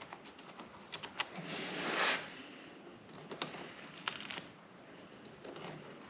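A marker scratching across the bench top as the vise's mounting holes are traced, one longer scratchy stroke about two seconds in, among light clicks and taps of handling.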